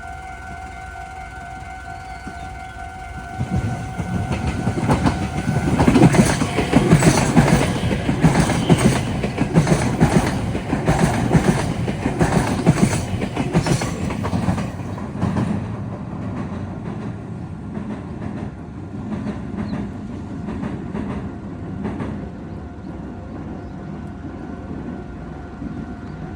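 A level-crossing warning bell rings steadily, then a Meitetsu electric train passes, its wheels clattering quickly over the rail joints and points of the junction. The train grows loud a few seconds in and is loudest around the middle, then fades, and the crossing bell is heard again faintly near the end.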